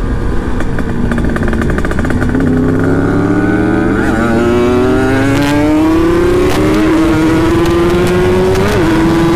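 Kawasaki Ninja RR's two-stroke single-cylinder engine accelerating hard, its pitch climbing steadily for several seconds and dipping briefly near the end. The engine has a newly fitted cylinder block and fresh road-race-style porting.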